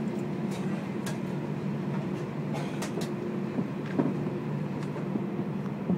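Airbus A320 cabin noise while taxiing: a steady low hum of the engines and cabin air, with a few light clicks and knocks scattered through it.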